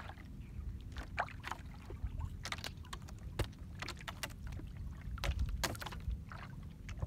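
Longline being hauled in by hand over the side of a small outrigger boat: irregular light clicks, knocks and rustles of line and gear against the wooden hull, over a steady low rumble.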